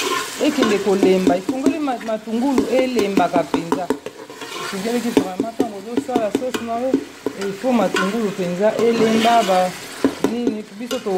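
A metal spoon stirring and scraping a sauce as it fries and sizzles in a steel pot, with irregular small clicks of spoon against metal. A voice sounds over it, without clear words.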